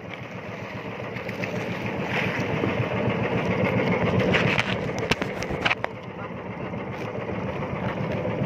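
Small engine of a motorized outrigger boat running steadily underway, with the rush of wind and water around the hull and a few sharp knocks near the middle.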